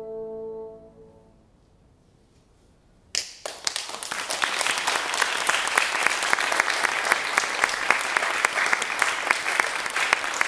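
A bassoon's final held note fades away in the first second. After a short hush, audience applause breaks out suddenly about three seconds in and goes on steadily.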